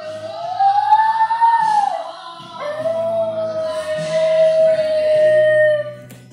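A dog howling along to a song: one long howl that rises and falls, then a second howl held on one note for about three seconds, over the music playing in the background.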